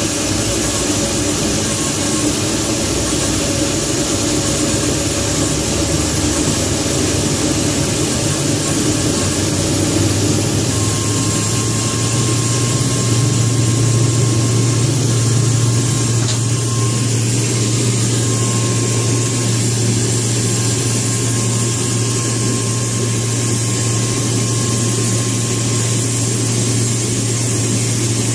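C-130 Hercules' Allison T56 turboprop engines running, heard from inside the cockpit as a steady, loud engine noise. A strong low drone comes in and grows louder about ten seconds in, then holds steady.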